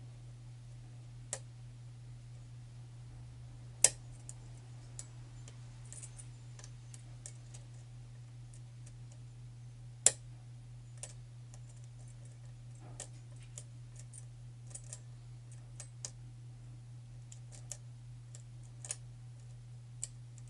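Pin-tumbler lock being picked: scattered small metallic clicks and ticks of the pick working the pins in a tight paracentric keyway, with two sharper, louder clicks about four and ten seconds in. A steady low hum runs underneath.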